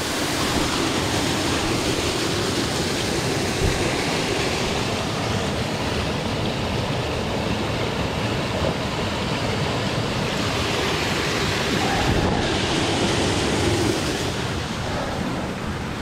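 Steady rushing of a small forest waterfall and its creek: an even wash of falling and flowing water with no break.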